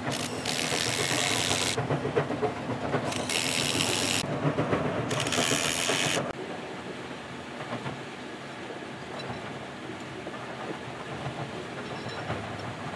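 Pneumatic impact wrench on a long extension, hammering and hissing in three bursts of about a second each as it loosens bolts on a wheel loader's wheel-end hub. After that, a quieter, uneven clatter of metal parts.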